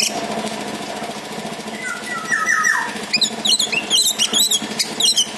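Orange-headed thrush (anis merah) singing: a short whistled phrase gliding down about two seconds in, then a rapid run of high, chattering chirps over the last two seconds.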